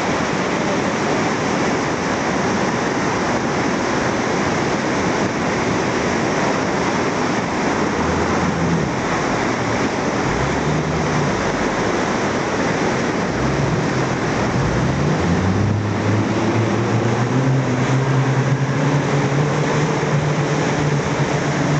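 Motorboat running on a fast river: a steady rush of water and wind noise, with the boat's Yamaha 70 outboard motor underneath. In the second half the motor's tone comes up and rises in pitch as it speeds up.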